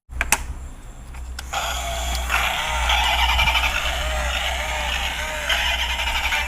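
Battery-powered toy vehicle sound effect: a click, then from about a second and a half in a loud electronic engine noise with a wavering, repeating tone over a low hum.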